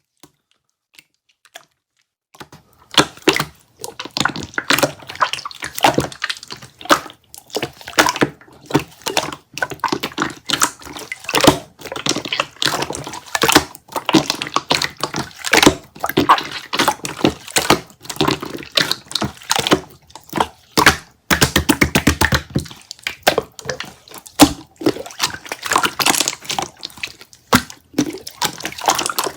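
Mixed splashy slime being squeezed and poked by hand, giving a dense run of wet clicks and pops. It starts about two seconds in, and a quick, even run of clicks comes about two-thirds of the way through.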